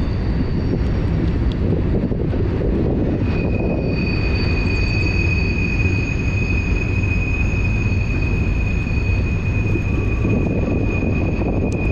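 Fast, high river water rushing steadily, a deep continuous roar of snowmelt flow. A thin, steady high tone sounds over it from about three seconds in.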